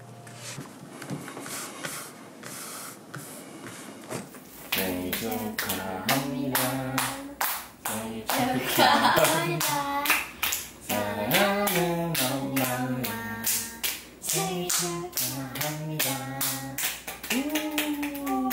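A family sings a birthday song together while clapping in time. The clapping starts alone, the voices come in about four seconds in, and the song ends on a long held note near the end.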